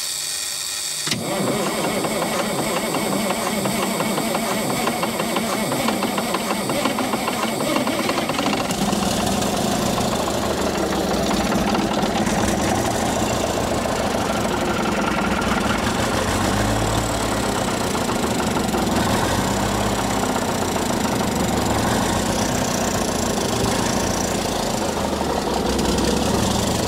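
Cummins Big Cam III 855 turbocharged inline-six diesel starting for the first time after sitting more than 25 years: a brief crank on the starter, the engine catching about a second in, then running steadily.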